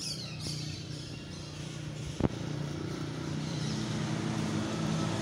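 An engine running steadily, a low even hum that grows slightly louder, with one sharp knock about two seconds in.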